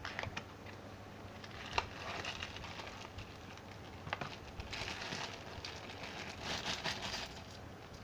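Clear plastic wrapping crinkling as stainless steel handcuffs are unwrapped by hand, loudest in the second half. A few sharp clicks and taps from handling the cardboard box and cuffs come before it.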